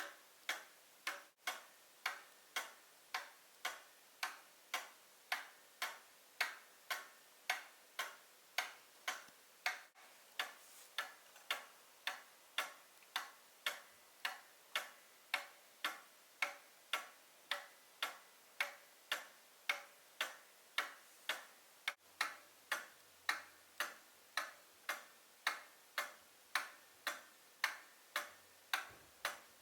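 Antique quail cuckoo clock's pendulum movement ticking steadily, about two even ticks a second.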